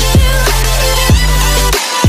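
Electronic outro music with a heavy sustained bass and a falling bass hit about once a second. The bass drops out for a moment near the end.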